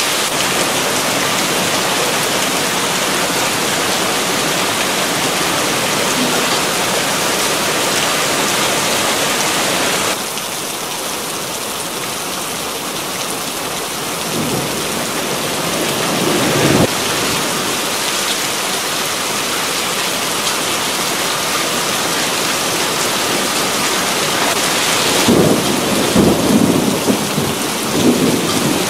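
Heavy downpour pouring and splashing onto a flooded paved street, a dense steady hiss of rain. The hiss drops suddenly about a third of the way through and swells again near the end, and a few brief low rumbles come through in the middle and near the end.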